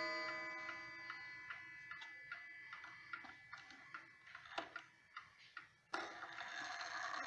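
Ansonia Trieste mantel clock ticking steadily at about two and a half beats a second, while the ring of its gong, struck just before, fades away over the first few seconds.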